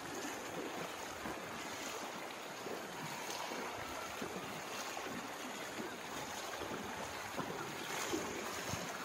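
Floodwater flowing across a submerged paved road and spilling off its edge: a steady rush of moving water.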